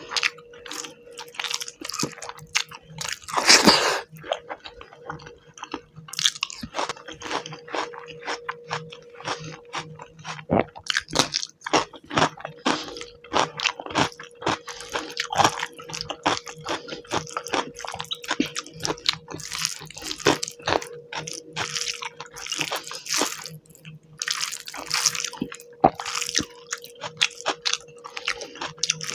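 Close-miked mouth sounds of a person eating fish curry with rice: wet chewing, smacking and squishing in quick irregular clicks, with one longer, louder noisy sound about three and a half seconds in.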